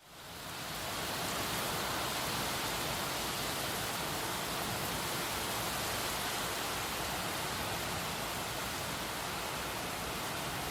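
Heavy rain pouring steadily, a dense even hiss that fades in over the first second.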